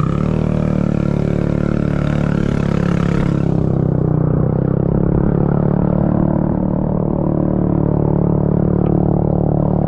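Motorcycle engine running steadily. A rushing hiss rides over it for the first three seconds or so and then dies away.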